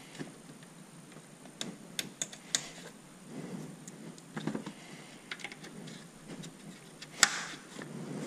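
Light scattered clicks and rustling as small plastic trim parts and clips are handled and fitted under a car's hood, with one sharp click about seven seconds in.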